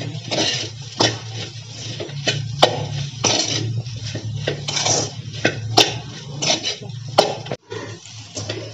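Metal spatula stirring and tossing sliced okra in a metal kadai: repeated scraping strokes along the pan, with four sharp clanks of spatula on metal.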